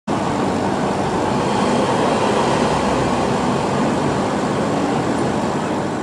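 Busy city street ambience: a steady wash of traffic noise.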